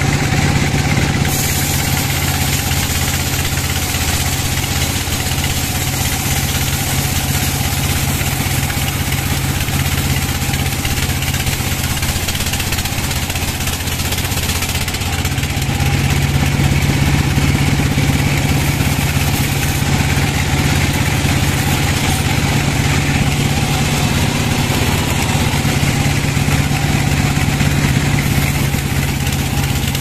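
Large vertical band sawmill running and cutting lengthwise through a big log: a steady machine drone under a broad sawing hiss. It grows a little louder about halfway through.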